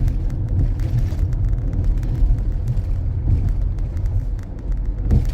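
Steady low rumble of a 2014 Honda CR-V driving along, heard from inside the cabin, with faint light ticks over it.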